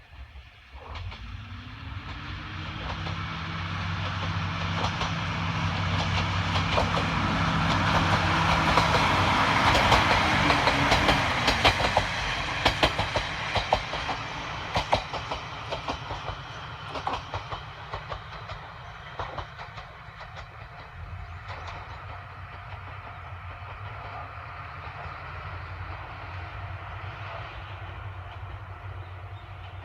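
Two-car diesel railcar set, a KiHa 52 and a KiHa 28 with DMH17-type diesel engines, approaching and passing. The engine drone grows louder until about ten seconds in, and its pitch drops as the train goes by. The wheels clack over the rail joints as the cars pass, then the sound fades as the train moves away.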